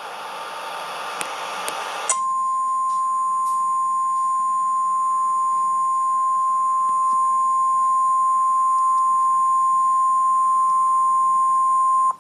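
Emergency Alert System attention tone for a tornado warning: a single steady beep near 1 kHz that sounds for about ten seconds and cuts off suddenly. It is the Weather Radio 1050 Hz warning tone, and a hiss of static comes before it.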